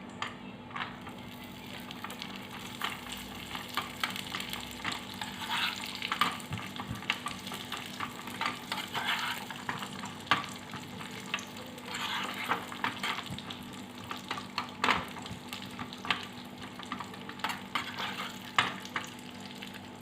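Cashew nuts and raisins frying in ghee in a pan, with steady sizzling and many small crackles, and a spoon stirring in the pan.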